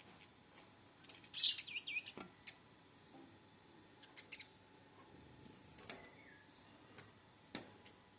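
Small bird chirping in a quick high-pitched burst about a second in, followed by scattered sharp taps and clicks and a few faint chirps.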